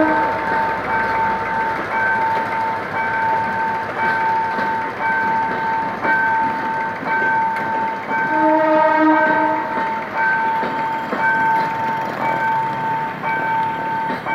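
Passenger coaches rolling past on the rails behind a GM G-22W diesel locomotive as the train pulls out. A level-crossing warning signal beeps about once a second throughout. A train horn sounds briefly about eight and a half seconds in.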